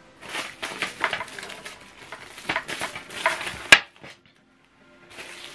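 Packaging and a power cable being handled: plastic rustling and irregular light clicks and clatter, with one sharp click just before four seconds in. The sound then cuts out for about a second.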